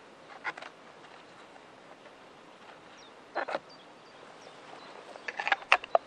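Short bursts of crackling clicks and rustles from someone moving and handling wood and gear at the chair frame: one brief cluster about half a second in, another about three and a half seconds in, and a denser, louder run near the end. A few faint high chirps come in the middle.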